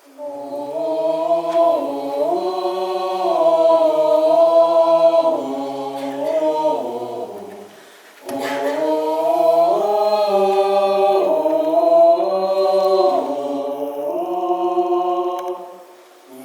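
A small group of voices singing unaccompanied in harmony, holding long chords that shift step by step, in two phrases with a short break about eight seconds in.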